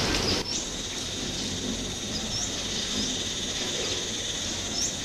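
Wild birds chirping: a few short, high, rising chirps, over a steady high-pitched insect-like hum and background hiss. The background noise drops about half a second in.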